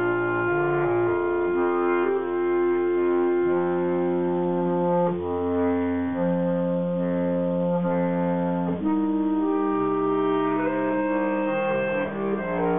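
A bass clarinet quartet playing slow, held chords in a low register. The chord shifts every second or few, with a clear change about nine seconds in.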